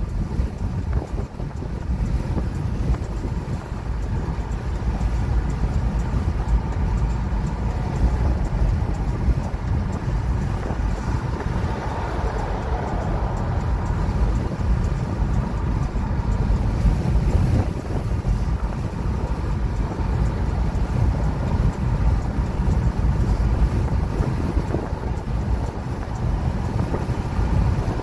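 Steady road noise inside a moving car's cabin at highway speed: a low tyre-and-engine rumble with wind noise.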